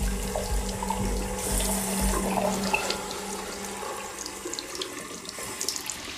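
Water running from a tap into a sink, a steady splashing hiss. A low musical drone runs underneath and stops a little under three seconds in.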